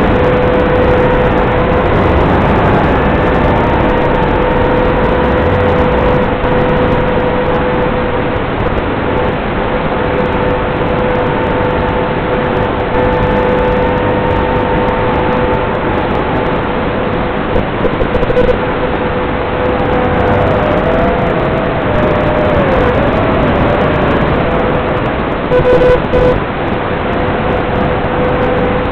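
FPV quadcopter in flight heard over its analog video-link audio: a loud, steady hiss with a steady whine underneath and a higher whine that wavers and dips about two-thirds of the way through. Short crackles near the end as the weak signal breaks up.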